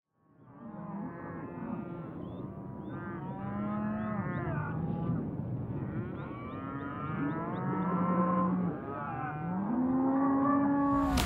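A herd of cattle mooing, many calls overlapping, fading in from silence about half a second in.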